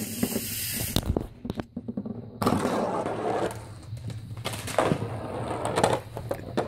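A golf ball rolling and knocking through a homemade chain-reaction machine, then wooden blocks toppling into one another with a run of light clacks.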